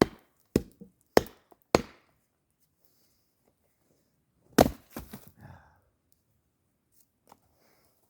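Wood being chopped with a blade: four sharp chops about half a second apart, then after a pause a harder chop followed quickly by a lighter one.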